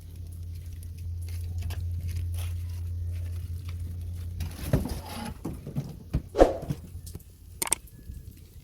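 A steady low hum that stops about halfway through, followed by scattered light knocks, clicks and rustles of objects being handled.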